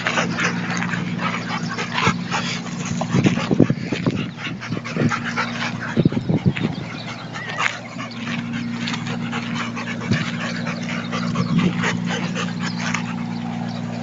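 A golden retriever and a cocker spaniel at play, giving short whimpers and yips and panting, over a steady low hum.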